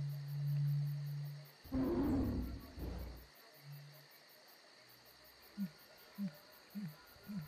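Jungle-style ambience sound effect: a steady high insect chirring throughout, a low held call, then a loud deep roar about two seconds in, followed by several short, low calls near the end.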